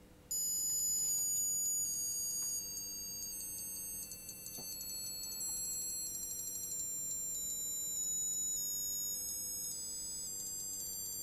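Piezo speaker driven by an Arduino Pro Mini, starting about a third of a second in with a shrill electronic tone. The tone steps down in pitch, and the steps come quicker and quicker. The falling pitch comes from the loop's frequency dropping as its delay shortens, the opposite of the intended rising pitch.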